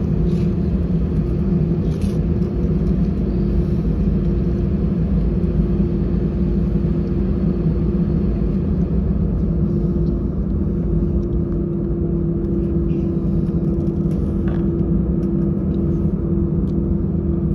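Airbus A320's CFM56 engines running steadily during takeoff, heard inside the cabin as a heavy rumble with a steady low drone and a higher hum.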